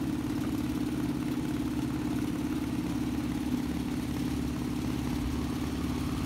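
Engine of a small river boat running steadily under way, a constant drone heard from on board.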